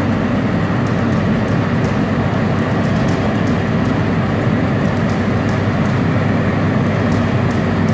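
Asphalt paver's diesel engine running steadily while the machine lays asphalt, a constant mechanical drone with faint scattered ticks.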